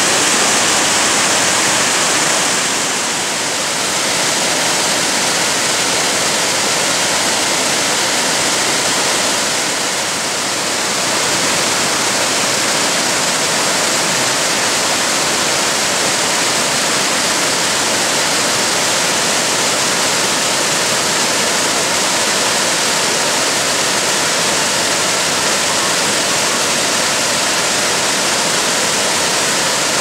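Yudaki waterfall: white water cascading down a long rock slope, heard as a loud, steady rush of falling water.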